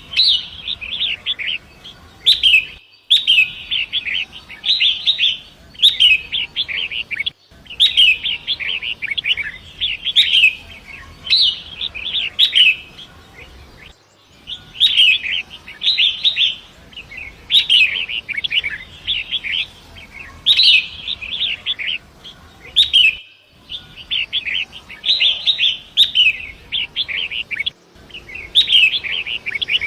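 Long-tailed shrike (pentet) singing a rapid, scratchy chattering song in phrases of a second or two, repeated almost continuously with sharp high notes mixed in. A faint steady hiss of flowing river water lies underneath.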